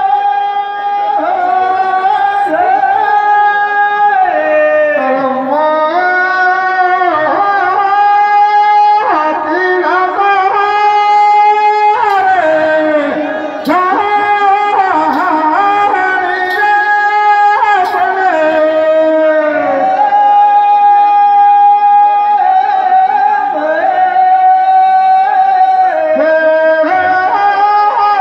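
Live Teja gayan, Rajasthani folk devotional music: a loud, high melody of long held notes joined by slides up and down in pitch.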